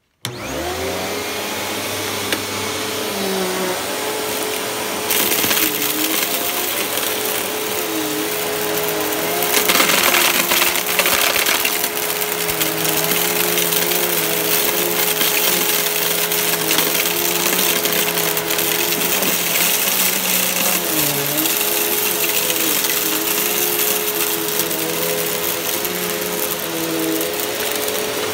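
Riccar Vibrance bagged upright vacuum switched on and run over carpet, picking up a fine dirt mix. The motor gives a steady whine over a rushing hiss, with lower tones wavering as it is pushed, and there is a stretch of louder crackling about ten seconds in.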